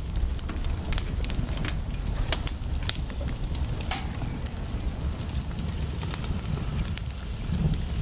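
Wood fire crackling in a fireplace: irregular sharp pops and snaps over a steady low rumble.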